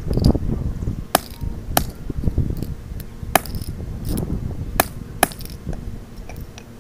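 Mini sledgehammer striking a locked Master Lock dial combination padlock, about half a dozen sharp metallic hits at uneven intervals, as the lock is battered to force the shackle open.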